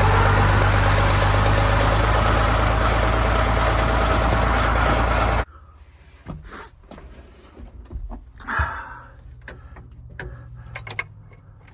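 A large farm machine running loud and steady, with a low hum under a broad rush of noise; it cuts off abruptly about five and a half seconds in. Then come quieter scattered clicks and knocks over a faint low engine hum.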